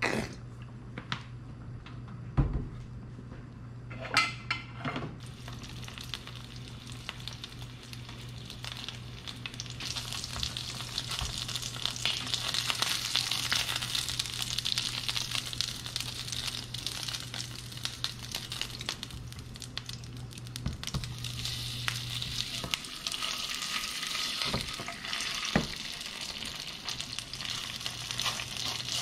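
Sausage and rice cake skewers (sotteok-sotteok) sizzling as they fry in oil in a pan. The sizzle grows louder about ten seconds in. A few clicks and knocks come in the first five seconds.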